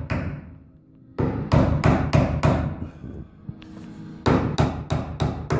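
Hammer driving cable staples into wooden framing studs to fasten Romex cable: two quick runs of about half a dozen sharp blows each, with a short pause between them.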